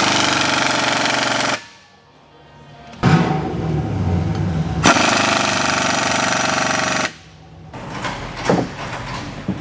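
Pneumatic impact wrench hammering on bolts at the driveshaft's rubber flex coupling behind the transmission, loosening them. It runs in two bursts, one of about a second and a half and then, after a short pause, one of about four seconds. A few light knocks follow near the end.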